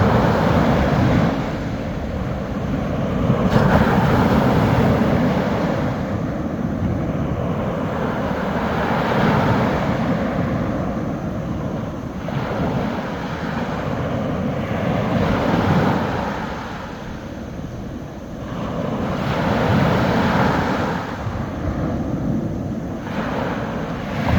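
Small sea waves breaking on a beach shoreline. Each wave swells into a rushing wash and falls away again, about every four to six seconds.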